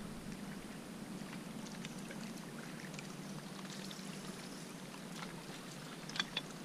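Small waves lapping against a rocky lakeshore, with a few footsteps crunching on loose rock about six seconds in.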